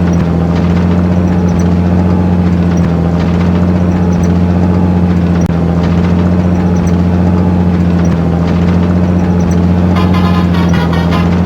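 Army truck engine sound running steadily at idle, a constant low hum. Near the end a fast, regular high-pitched pattern joins it.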